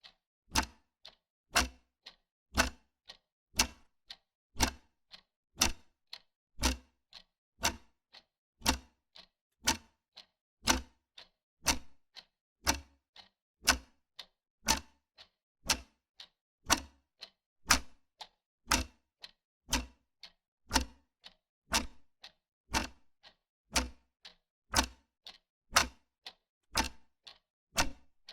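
Wall clock ticking steadily, about two ticks a second, alternating a stronger and a weaker tick in a tick-tock rhythm.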